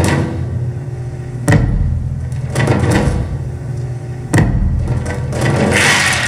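Music for a dance solo: a low sustained drone with a heavy percussive hit about every three seconds, and a hissing swell that builds near the end.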